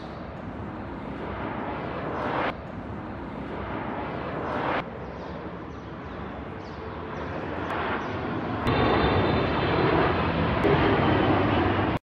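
Jet airliner engine noise, a steady rushing roar heard in several short stretches that change abruptly, the loudest from about two-thirds of the way through; it cuts off suddenly near the end.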